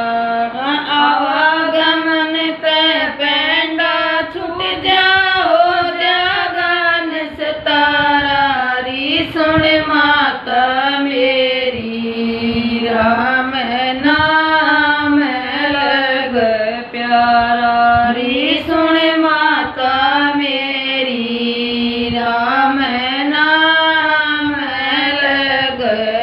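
Two women singing a Hindi devotional bhajan together, in long phrases with held, sliding notes.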